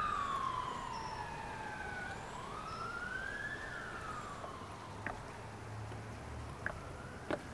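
Police siren wailing, its pitch rising and falling in slow sweeps of about three and a half seconds, fading out a little past the middle. A few faint clicks follow near the end.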